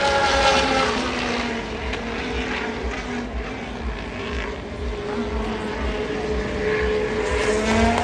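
BAE Hawk T1 jets flying past: the jet whine falls in pitch as one pass moves away in the first second or so, stays steadier through the middle, and rises again near the end as aircraft come back in.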